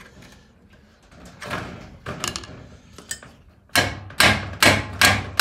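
Hammer blows on a long screwdriver driven under a spot-welded steel body-mount bracket on a truck chassis, with sharp metallic strikes. There are a few spaced hits at first, then a quick run of about five harder blows, roughly two a second, near the end. The bracket is being bashed to break its factory spot welds until it snaps off.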